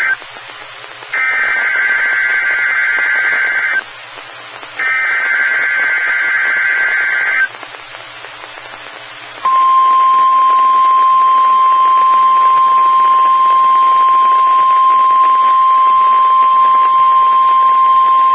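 NOAA Weather Radio Emergency Alert System alert through a weather radio's speaker: two buzzy bursts of SAME digital header data, each about two and a half seconds long and a second apart, then about nine seconds later a steady high 1050 Hz warning alarm tone that cuts off at the end. This is the attention signal that precedes a warning message, here a practice tornado test warning.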